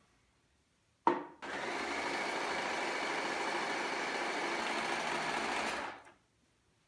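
Singer electric sewing machine stitching denim, running steadily for about four and a half seconds before it stops. A sharp click comes just before it starts.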